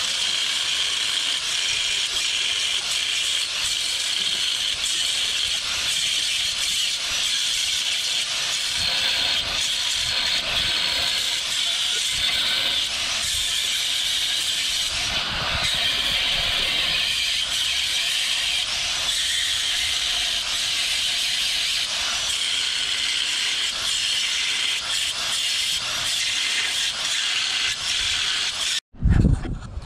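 Corded electric angle grinder with a cutoff wheel cutting through the cast-metal casting ridge of a Nissan CD009 transmission's bellhousing: a steady, high grinding hiss that cuts off suddenly near the end.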